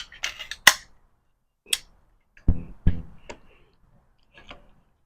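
A series of sharp clicks and knocks, about seven over a few seconds: the loudest comes just under a second in, and two duller, deeper knocks come close together near the middle.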